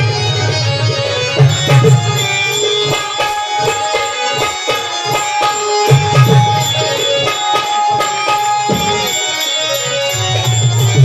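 Tamasha folk music: hand drums beating under a melody of steadily held notes.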